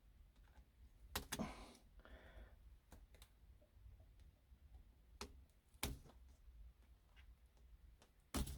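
Faint, scattered clicks and taps of hands fastening a tie around the heat-wrapped diesel heater exhaust pipe, a few sharper clicks about a second in, around five to six seconds, and near the end.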